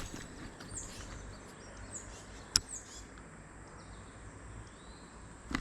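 Quiet outdoor creek ambience: a few short, high, downward-sweeping bird chirps over a low background rumble, with one sharp click about two and a half seconds in.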